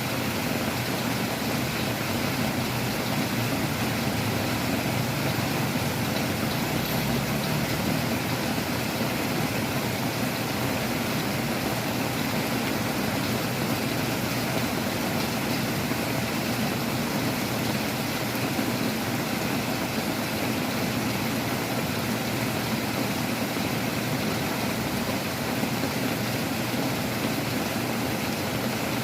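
Heavy rain and strong wind: a steady, even rushing noise with no breaks.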